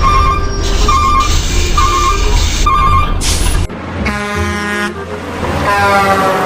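Heavy truck engine running under four short beeps about a second apart; then, after a sudden cut, a truck horn sounds for about a second, and again near the end, sliding down in pitch.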